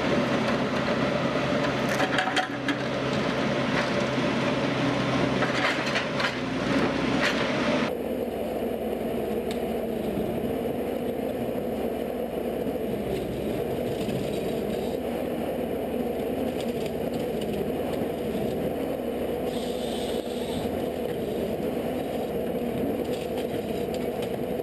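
Wood-processing machinery running with a steady mechanical hum, with wood cracking and scraping over it in the first part; the sound changes abruptly about eight seconds in to a smoother, steadier machine hum.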